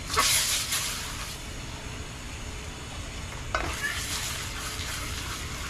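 Hot oil with turmeric sizzling in a cooking pot. It flares up sharply right at the start, dies back over about a second, then flares up again about three and a half seconds in and fades slowly.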